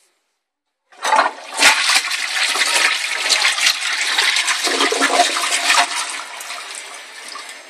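Toilet flushing: a loud rush of water starts about a second in and fades toward the end.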